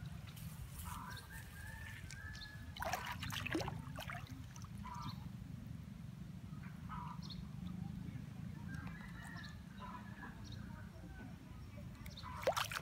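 Water splashing and dripping as a basket lift-net on a bamboo pole is worked in shallow floodwater, with a couple of sharper splashes about three seconds in and near the end. Distant fowl call twice over a low wind rumble.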